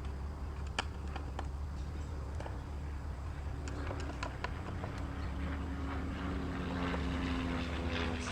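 A steady low engine drone that grows louder in the second half, with scattered light clicks of a screwdriver working the screws out of a car's air filter housing.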